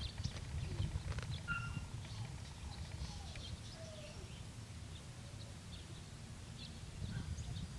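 Quiet outdoor ambience: a steady low rumble with scattered short bird chirps.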